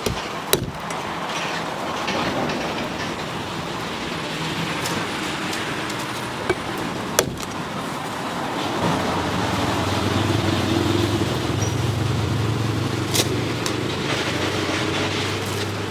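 Street traffic, with a motor vehicle's engine running close by from about halfway through, and a few sharp knocks.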